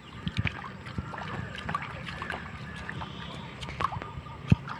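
Shallow water sloshing and splashing, with scattered small knocks and a sharp thump near the end.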